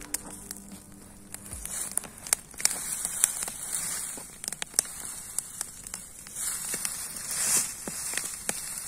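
Bonfire of cut garden branches crackling with frequent sharp pops over a steady hiss that swells about seven seconds in; the branches burning now are still damp.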